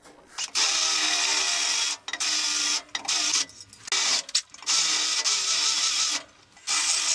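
Cordless drill running in several bursts with a steady whine, briefly stopping between them, as it drills out the heads of the rivets holding the end cap on a two-stroke dirt-bike exhaust silencer.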